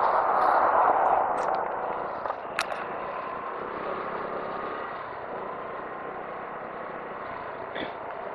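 Wind and road noise on a moving motorcycle's action camera, swelling loudest for the first second or so as a large dump truck passes close alongside, then settling to a steady rush. A few sharp clicks come a second or two in.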